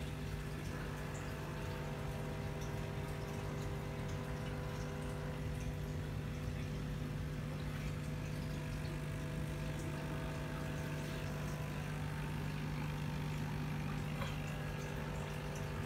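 Aquarium air pump humming steadily while it aerates fry tubs, with faint bubbling from the airline tubing and sponge filter in the water.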